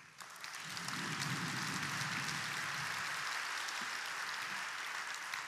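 A large audience applauding, many hands clapping at once. It swells up in the first second, holds steady, and begins to die away near the end.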